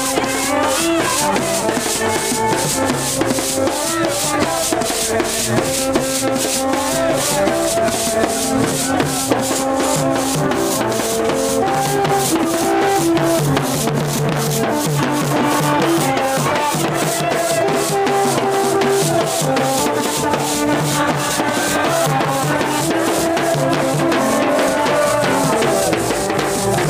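Street drum band playing a fast, steady beat: hand drums and a stick-beaten drum with a rattling shaker, under a melody of held notes.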